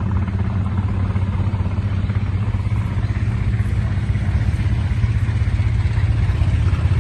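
Engine running steadily with a deep, fast, even chug.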